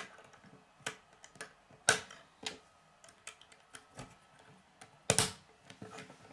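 Plastic K'nex rods and connectors clicking as they are handled and snapped together, with pieces tapping on a wooden tabletop. The clicks are irregular, the loudest about two seconds in and another about five seconds in.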